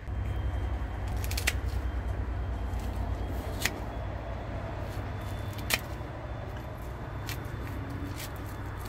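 Kitchen shears snipping through a striped bass as it is gutted: about five sharp snips a second or two apart, over a steady low hum.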